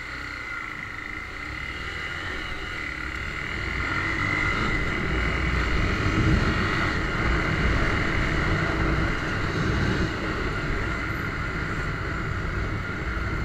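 Single-cylinder engine of a red 2008 Honda CBX 250 Twister motorcycle pulling away and accelerating, growing louder over the first six seconds or so, then running steadily at speed. It is heard through the action camera's own built-in microphone.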